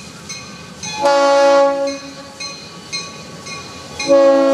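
Diesel freight locomotive's air horn sounding a multi-note chord in two blasts: a one-second blast about a second in, and a longer one starting near the end. Underneath, a bell clangs steadily about twice a second.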